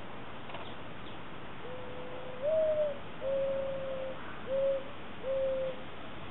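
Mourning dove cooing its song once: a low note that steps up to a higher one, then three long, steady, lower coos.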